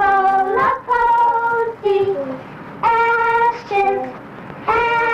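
Children and adults singing a slow tune together, each note held for about half a second to a second with short breaks between notes.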